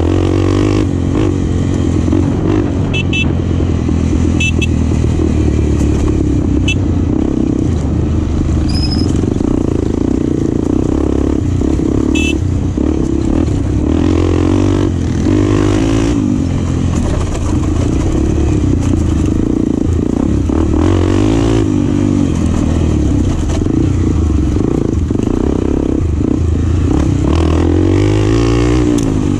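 Enduro dirt-bike engine running hard on the throttle, its revs rising and falling continuously as the rider accelerates, backs off and shifts, with a few light clicks and clatter over it.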